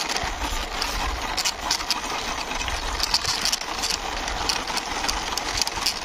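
Plastic wheels of a toy dump truck rolling along rough concrete as it is pushed by hand: a steady rattling rumble with many small clicks.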